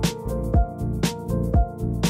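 Background music with a steady drum beat and pitched melody notes.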